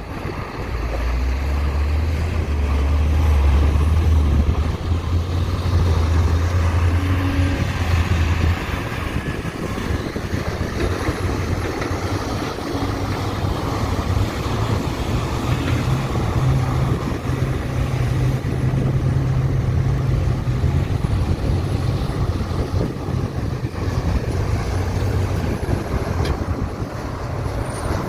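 Heavy diesel engine of earthmoving equipment running, a deep steady drone whose pitch shifts up and down as the machine works.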